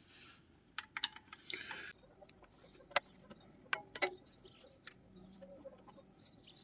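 Irregular sharp metallic clicks and taps as hands handle parts at the rear of a mountain bike, the loudest about three seconds in.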